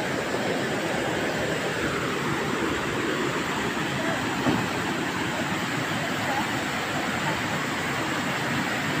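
Steady rushing of a waterfall, an even roar of falling water.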